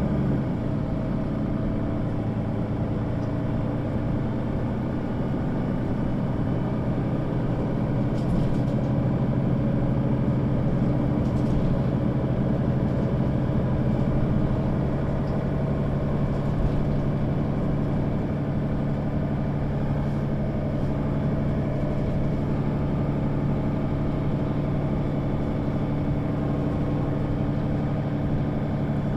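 Diesel engine of a Mercedes-Benz O 530 G Citaro articulated bus running steadily with a low hum that holds one pitch throughout, as when the bus stands idling.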